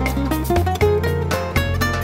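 Background music: a quick plucked-string melody, guitar-like, over held bass notes.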